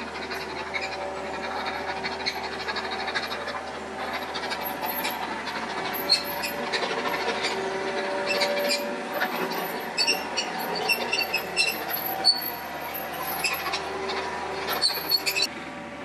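Kubota KX91-2 mini excavator's diesel engine running steadily under work, with metallic clanking and squealing from the machine as it moves and pushes gravel. The clicks and squeals come thick from about six seconds in and stop suddenly near the end.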